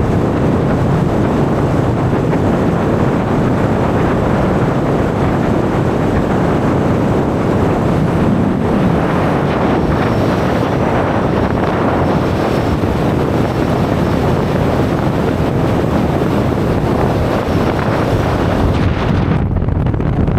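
Loud, steady rushing noise of wind buffeting the microphone.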